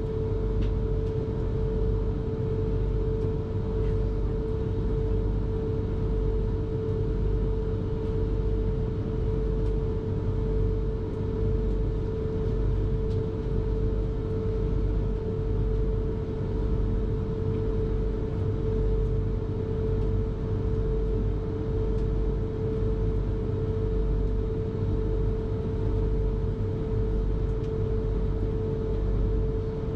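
South Western Railway suburban electric train running at a steady speed, heard from inside a coach: an even rumble of wheels on track with a slow regular pulsing, and a constant whining tone.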